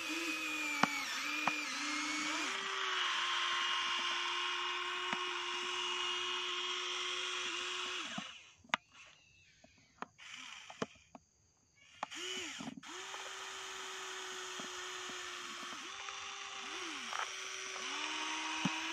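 Small electric motors of a remote-control toy excavator whirring in a steady whine as it digs and swings, the pitch dipping each time a motor starts or stops. About halfway through the motors fall silent for roughly four seconds, with only a few clicks.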